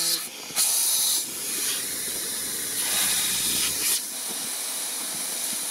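Air hissing out of an off-road vehicle's tyre through its brass valve stem as the tyre is let down to a lower pressure. The hiss is loudest for a moment about half a second in and runs on more steadily after.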